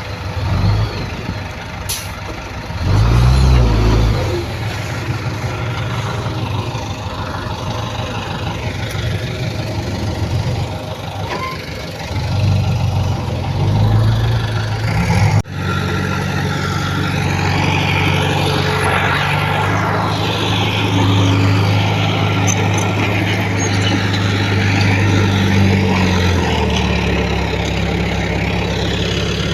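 Diesel engines of heavy earthmoving machinery running under load, the engine note swelling and easing. There is a sharp click about two seconds in, and the sound drops out for an instant about halfway through before running on steadier.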